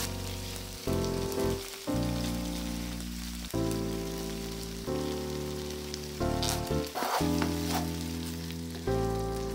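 Soft background music of sustained chords that change every second or so, over a faint steady hiss, with a short crackle a little past the middle.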